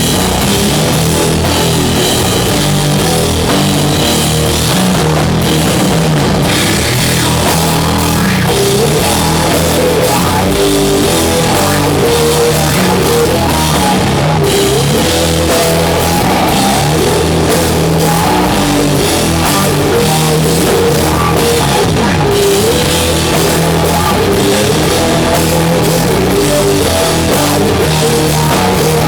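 Doom metal band playing live, loud and steady: heavy guitar riffs over a drum kit.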